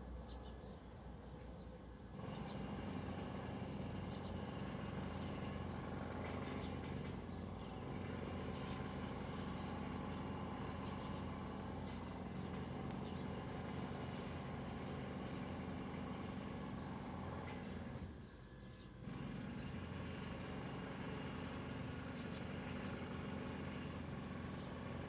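Steady low mechanical hum that starts about two seconds in, breaks off for about a second near the middle of the second half, then resumes.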